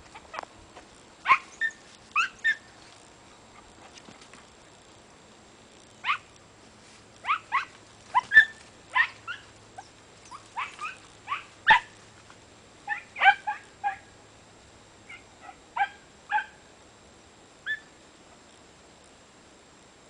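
A dog yelping in short, high yips, singly or two or three in quick succession, with a pause of a few seconds near the start.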